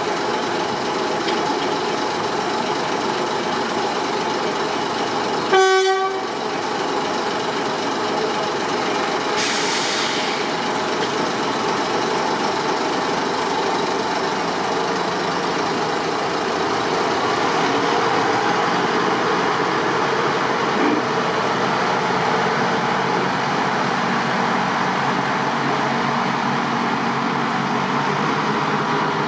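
Diesel-electric 0-6-0 shunting locomotive running, with one short horn toot about six seconds in and a brief hiss a few seconds later. The engine note swells a little as the locomotive pulls away.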